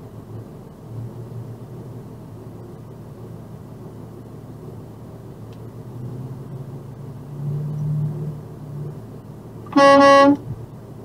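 Box truck running, heard from inside the cab, with one short, loud blast of its air horn near the end.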